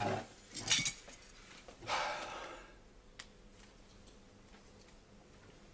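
Carving knife and fork clattering and scraping on a roast joint and its serving platter: a sharp clink just under a second in, a longer scrape that fades out about two seconds in, then a single faint click.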